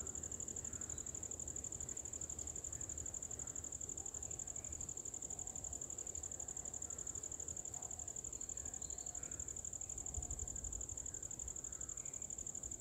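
Steady high-pitched insect drone with a fine pulsing, unchanging throughout, over a low rumble and a few faint short chirps.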